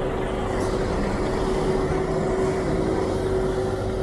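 Rigid curtain-side lorry's diesel engine running as it drives slowly past at close range: a steady rumble with a constant hum.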